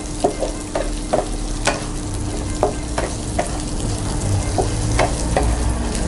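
Beef, garlic and red chilli sizzling in oil in a nonstick pan while a wooden spatula stirs them, with irregular taps and scrapes of the spatula against the pan.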